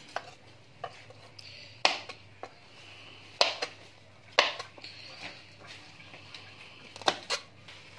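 Kitchen knife slicing green chillies on a plastic cutting board: scattered sharp knocks of the blade against the board, about ten, irregularly spaced.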